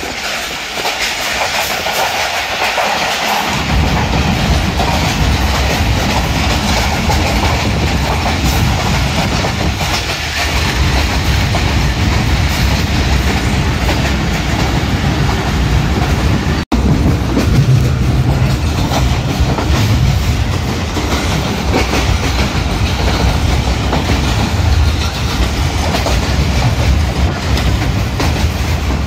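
Passenger train running along the track, its wheels clicking over the rail joints, with a deep rumble that comes in after about three seconds.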